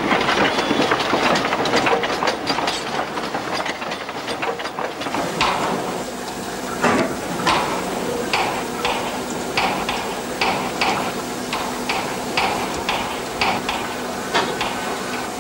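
Prussian P8 (DB class 038) steam locomotive hissing steam, then, from about five seconds in, giving a regular beat of short puffs, about two a second.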